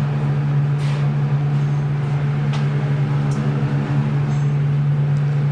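A steady low machine-like hum, one low tone with overtones above it, with a few faint ticks.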